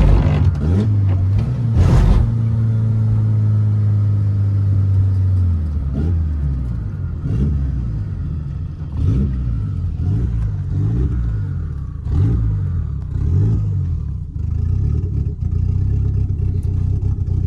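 Turbocharged Honda D-series 'mini me' engine (D16Y8 head on a D15B7 block) heard from inside the moving car. It runs steadily for about five seconds, then its pitch rises and falls about once a second for several seconds before it settles back to a steady drone. A few sharp clicks come near the start.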